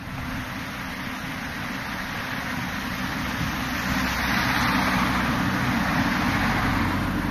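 Street traffic: a motor vehicle's engine running along with road noise, growing louder around the middle and staying up.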